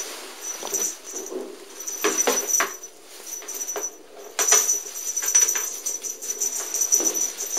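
Irregular scratching and rustling as a cat bats and paws at a feather wand toy against a plastic cat carrier, with scattered clicks and a faint high ringing that comes and goes.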